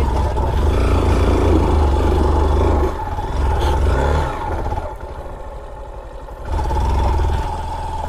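Honda XR190 motorcycle's single-cylinder engine running under load on a rough off-road trail, pulling in surges. It eases off for a moment about five seconds in, then picks up again.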